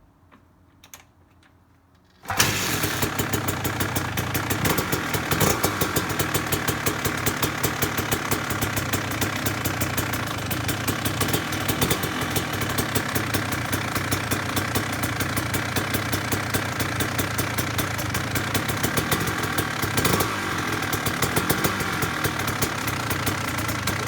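A 1999 Kawasaki KX250's two-stroke single-cylinder engine catching from cold about two seconds in, after a couple of faint clicks, on its first start after restoration. It then runs steadily with a rapid, even firing.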